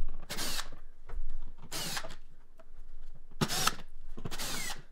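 Drill with a Phillips bit backing screws out of a cab roof cover. It runs in four short bursts, each well under a second.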